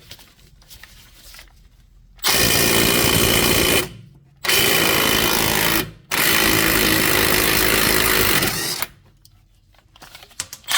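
Cordless right-angle impact wrench (Milwaukee M12 Fuel, half-inch drive) hammering on a bolt in three bursts. The first two last about a second and a half each and the last about two and a half seconds, with short pauses between them.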